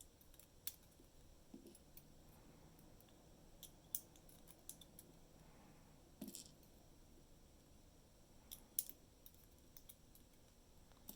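Faint, scattered small metallic clicks and ticks of tweezers and tiny lock parts as driver pins and springs are taken out of a DOM IX Twinstar dimple lock cylinder. The clicks are sharpest about four seconds in and again near nine seconds.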